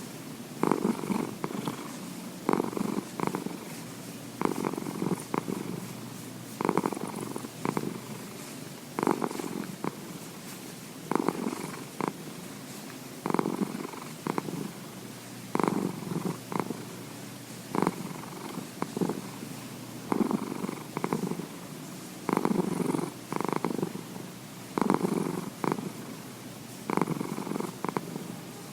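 Domestic cat purring heavily and steadily, the purr swelling in pairs of strong pulses about every two seconds.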